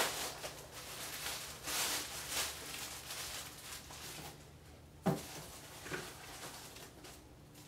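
Plastic bag crinkling and rustling in short bursts as an RC radio transmitter is unwrapped, with one sharp knock about five seconds in.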